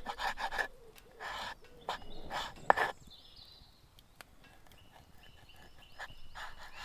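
Short bursts of rustling and handling noise, one with a sharp click, followed by faint, brief high bird calls from woodland birds.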